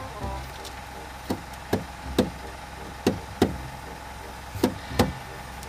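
Hands knocking and tapping on the rear window glass while wet tint film is smoothed onto it: a series of sharp knocks, several in quick pairs, over a steady faint hum.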